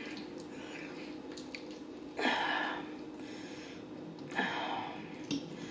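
Close-miked eating sounds: two short noisy mouth sounds about two seconds apart, over a faint steady room hum.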